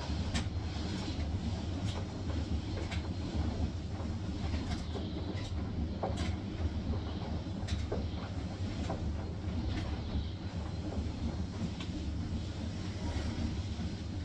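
Hisense washing machine on its spin cycle: the spinning drum gives a steady low rumble, with scattered light clicks.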